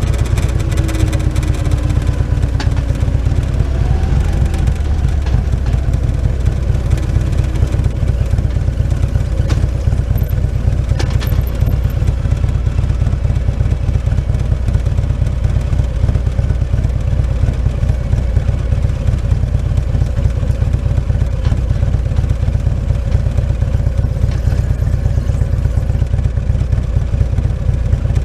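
Motorcycle engine running as the bike rides along a road at a steady pace, with a brief rise and dip in pitch about four seconds in.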